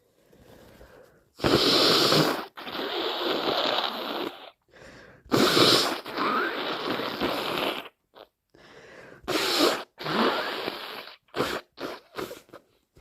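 A person with a cold blowing a snotty, congested nose, with sneezes among the blows: three long stretches, each opening with a sharp burst. Several short, quick sniffs follow near the end.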